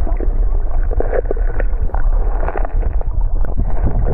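Muffled underwater noise picked up by a camera under the water: a steady low rumble of moving water, with bubbles and many scattered clicks and crackles.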